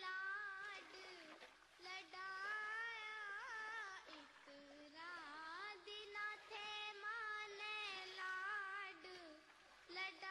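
A high voice singing a slow melody, holding long notes with quavering ornaments and bends, with short breaths between phrases.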